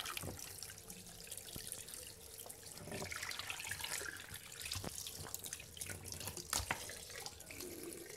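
Tap water running in a steady stream onto a raw, gutted rooster carcass in a sink, with irregular splashes and wet knocks as hands rub and turn the meat under the flow; the sharpest knock comes about six and a half seconds in.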